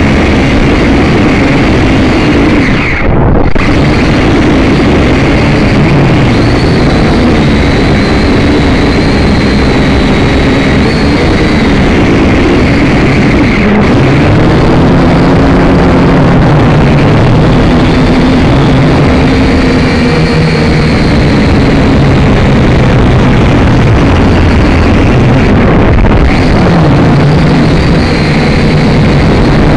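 Syma X5C-1 quadcopter's electric motors and propellers whining, picked up by its own onboard camera under a heavy rush of wind on the microphone. The motor pitch keeps rising and falling as the throttle is worked against the updraft.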